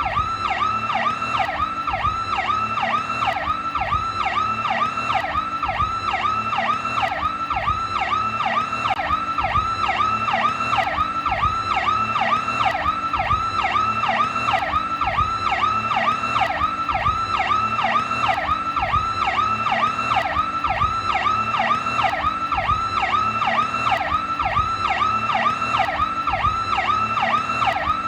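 PowerCall electronic police siren sounding continuously. Its tone sweeps quickly up and down in a steady, evenly repeating cycle.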